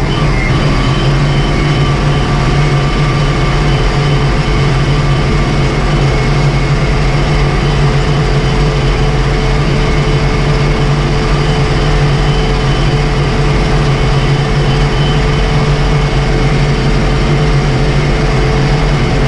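Ursus 1224 tractor's six-cylinder diesel engine running steadily at road speed, heard from inside the cab, with an even, unchanging engine note.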